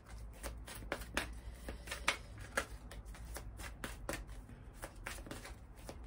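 A deck of oracle cards being shuffled by hand: a run of soft, irregular card snaps and slides, about two or three a second.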